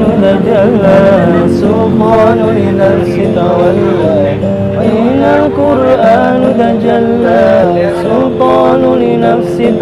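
A sholawat, an Islamic devotional song, sung with a winding, ornamented melody over steady held accompanying notes.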